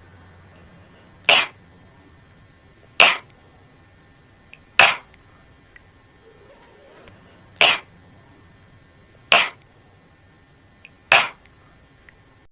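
A voice making the phonics /k/ sound: six short, breathy 'k' puffs in two sets of three, each about two seconds apart.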